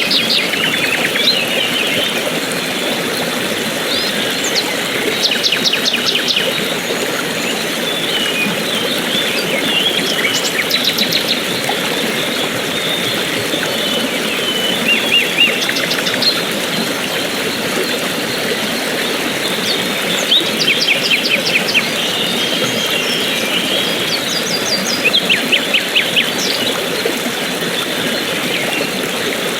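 Steady rush of running water with birds chirping over it: short, fast runs of high chirps recur every few seconds.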